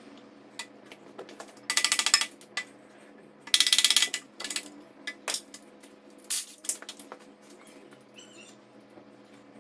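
Hand tools working on engine bolts: two short runs of rapid ratchet clicking, about two seconds in and again near four seconds, with scattered metallic clinks and taps of tools and loose bolts.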